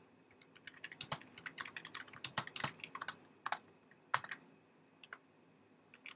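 Typing on a computer keyboard: a quick run of key clicks lasting about three seconds, then a few single keystrokes spaced out after it.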